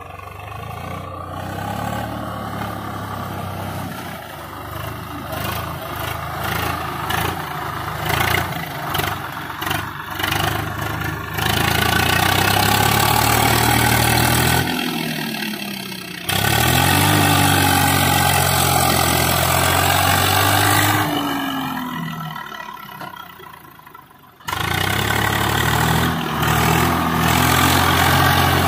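Swaraj 744 FE tractor's three-cylinder diesel engine running under load while it drags a rotavator through wet paddy mud. The engine note rises and falls several times as it revs, and the sound drops out and comes back abruptly a couple of times.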